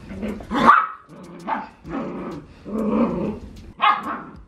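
A puppy barking and growling in play over its toys, a string of short calls with the loudest a little under a second in.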